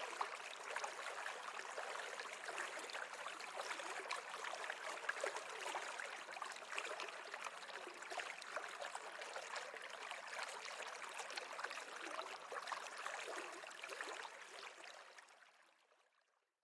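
River water running and babbling in an even, rippling rush, fading out over the last couple of seconds.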